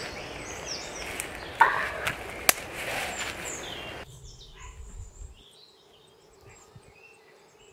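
Rustling and crunching of dry leaf litter and twigs as a person gets up and walks off, with a few sharp snaps. About four seconds in the sound drops abruptly to a quiet woodland background with faint bird chirps.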